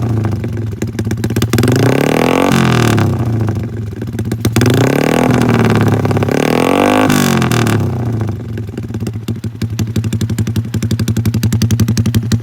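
Yamaha LC135 single-cylinder four-stroke motorcycle engine, bored out to a 63 mm block, revved three times through a GL Racing Super Open big-cork cutting exhaust, the pitch climbing and falling back each time, then dropping to a pulsing idle over the last few seconds. The open exhaust is loud and shrill, with a trumpet-like note.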